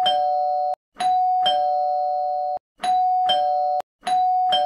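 Electronic two-tone doorbell going ding-dong, rung again and again in quick succession, about four times. Each chime cuts off abruptly as the next press starts it over.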